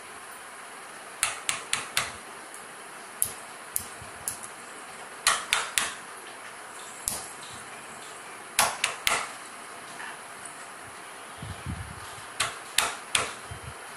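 A baby's hands, one wearing a metal bangle, knocking on a wooden bed rail: quick clusters of three or four sharp taps, repeated about four times, with a few dull thumps near the end.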